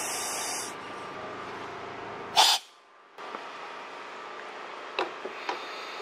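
Compressed air hissing from a scuba set as the BCD is inflated from the tank, the hiss stopping less than a second in. A short, loud rush of air follows about two and a half seconds in, then a few light clicks.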